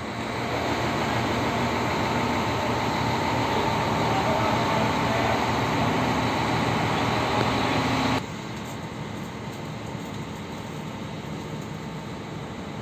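Scania K360IB bus's diesel engine running steadily at idle, heard inside the cabin as a steady hum. About eight seconds in the level drops abruptly and the hum carries on quieter.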